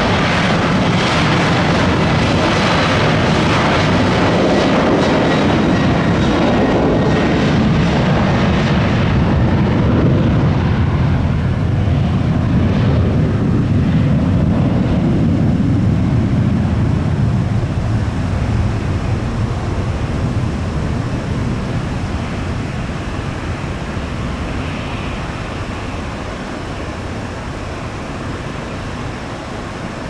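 Boeing 737's twin jet engines at takeoff thrust during the takeoff roll and climb-out: a loud, steady rushing jet noise with a deep rumble, fading gradually over the last third as the aircraft climbs away.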